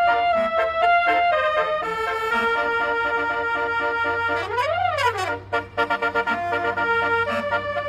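Basuri telolet horn, a multi-tone horn, playing a melody of stepped notes. About four and a half seconds in it makes a quick siren-like sweep up and back down in pitch.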